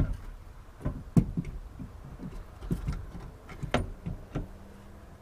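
Irregular metal clanks and knocks, about nine in a few seconds, from a strut assembly being worked up into place on the car's front suspension.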